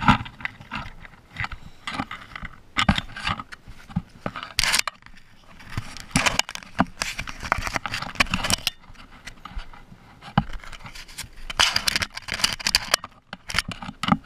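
Baby skunks rubbing and scraping against the camera: irregular bursts of scraping, rustling and light tapping as fur and bodies brush over the housing.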